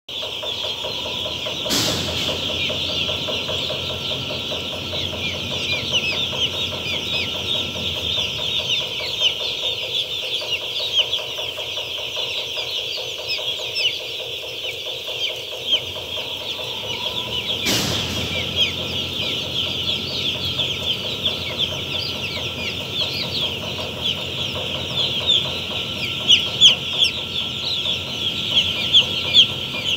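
Hundreds of day-old chicks peeping together: a dense, continuous high-pitched chorus of short falling peeps, with single peeps standing out louder near the end. A faint steady hum runs underneath, and two sharp clicks come about two seconds in and just past halfway.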